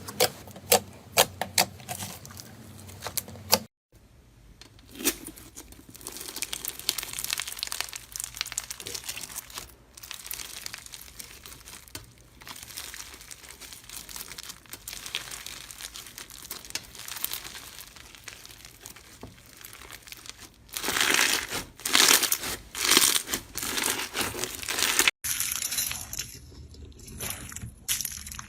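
Slime being pressed, stretched and poked by hand, making dense small crackles and clicks. The sound cuts off abruptly twice as one slime clip gives way to another, with louder squishing bursts a few seconds before the second cut.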